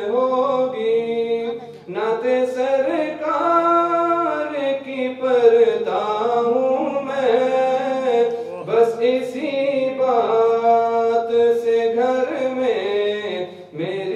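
A man's solo voice reciting a naat unaccompanied: an Urdu devotional poem sung in long, held, gliding melodic lines, with short breaths about two seconds in and near the end.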